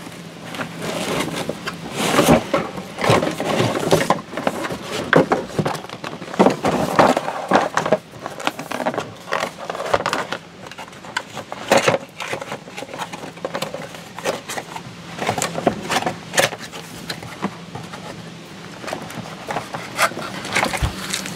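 Cardboard box and foam packing scraping, rustling and knocking irregularly as a boxed battery charger is worked loose and lifted out by hand, over a faint steady low hum.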